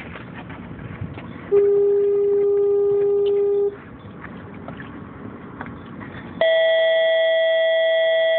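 Two long, steady horn-like tones, each about two seconds long and cutting on and off suddenly: a lower one a second and a half in, then a higher one near the end, with a faint background hiss between them.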